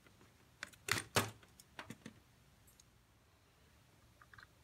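Sharp little metal clicks and taps as a small hand tool works at the hands on the dial of a Gustav Becker clock movement. The two loudest come about a second in, a few lighter ones follow, and there are faint clinks near the end.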